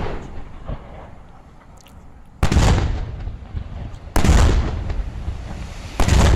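Aerial firework shells bursting: three loud booms a little under two seconds apart, each dying away slowly.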